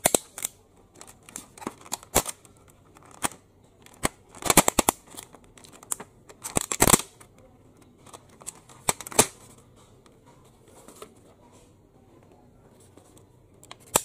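Thin clear plastic clamshell food container crackling and clicking as it is handled and its lid pulled open. The crackles come in an irregular run, densest in two bunches around the middle.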